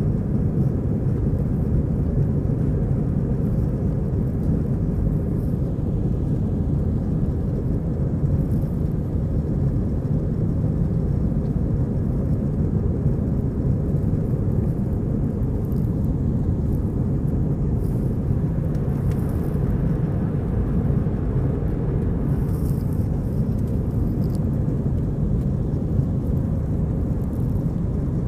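Steady low rumble of jet engines and rushing air heard inside an airliner cabin during the climb.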